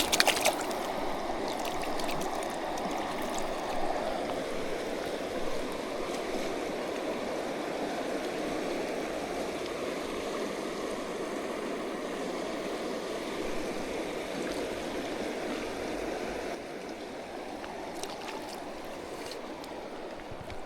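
River water rushing steadily past, with a few sharp clicks about the start.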